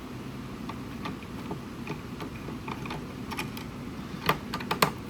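Small, irregular clicks and taps of hand disassembly work on a Sony Air-SA10 speaker's housing and parts, with two sharper knocks about four and a half seconds in.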